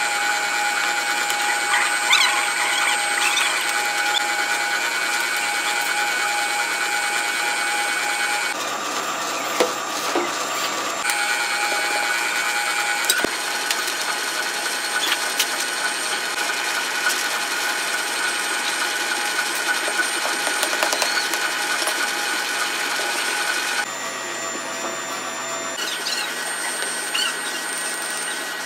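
A steady high machine whine, like an electric motor or blower, with light scrapes and taps from sand being packed into moulding flasks. The whine changes pitch abruptly a few times.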